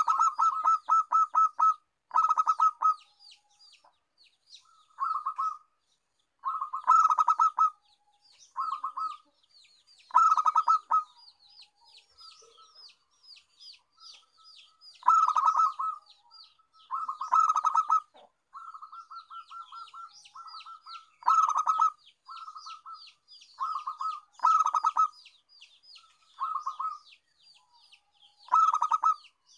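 Zebra dove (perkutut) cooing: loud bursts of rapid staccato notes, repeated about every one to two seconds, with faint high-pitched twittering in the gaps between them.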